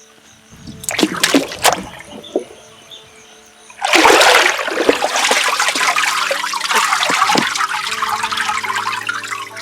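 Water splashing a few times, then pouring or trickling steadily from about four seconds in.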